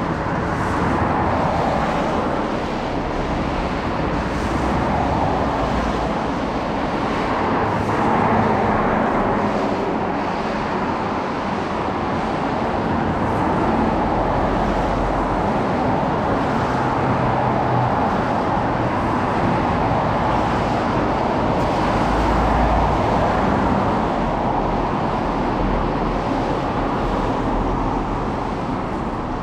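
Steady road traffic on a rain-wet street, a continuous wash of tyre and engine noise that swells and eases gently as vehicles pass.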